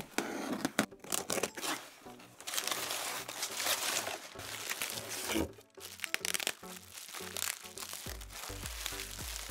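Crumpled paper packing crinkling and rustling as it is pulled out of a cardboard box, followed by lighter crinkling of plastic bubble wrap being handled. Background music plays underneath, with a low bass line coming in near the end.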